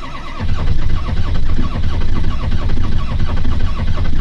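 Starter cranking the cold 6.0 Power Stroke V8 turbodiesel of a 2003 Ford F-350 in a steady rhythmic chug without the engine catching: a cold no-start in sub-freezing weather with the block heater unplugged.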